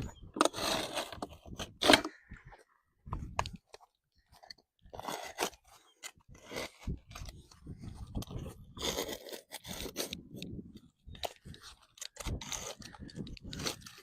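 A blade cutting a line through asphalt roof shingles along a guide laid on top: a run of irregular crunching and scraping strokes with sharp clicks and short pauses.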